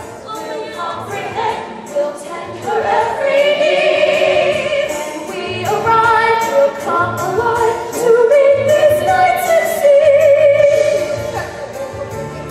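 Youth theatre cast singing a musical-theatre number with instrumental accompaniment; one voice with a wide vibrato carries the melody above the others.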